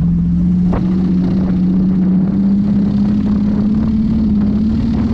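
BMW E38 7 Series V12 engine running under load, heard from inside the cabin, its note rising slowly as the car pulls along. A single knock about three-quarters of a second in.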